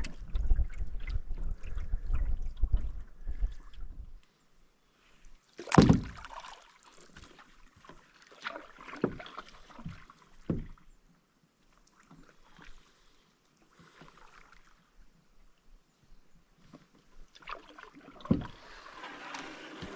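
Canoe being paddled, with water sounds from the strokes and knocks of the paddle or gear against the hull: one loud sharp knock about six seconds in, a few softer knocks a few seconds later, and another near the end.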